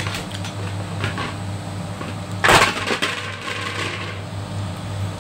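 Steady low hum of a fan running beside a stovetop pot, with a few light clicks in the first second or so and a short, loud crackling clatter about two and a half seconds in.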